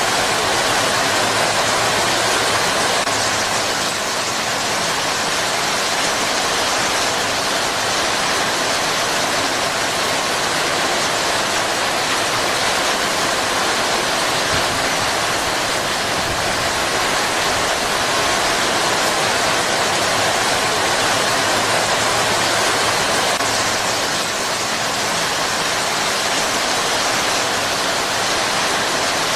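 Heavy rain falling steadily: a dense, even hiss of water that does not let up.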